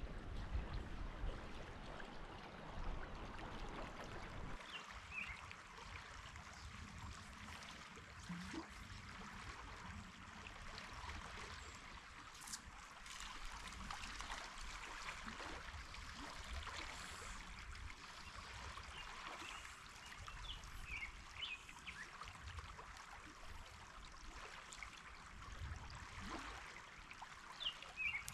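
Steady rush of a flowing trout river, with a few faint bird chirps now and then, more of them near the end.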